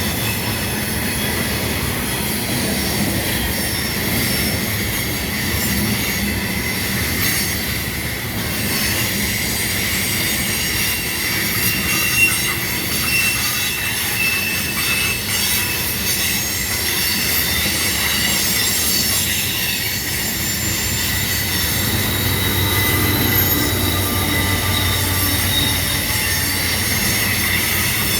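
Loaded coal train's hopper cars rolling past, steel wheels squealing in steady high tones over the rumble and clack of the rails. A deeper low rumble builds from about two-thirds of the way through.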